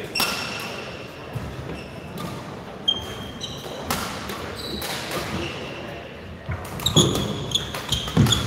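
Court shoes squeaking on a sports-hall floor, with scattered knocks and thuds that echo in the large hall. The squeaks and knocks come thicker near the end.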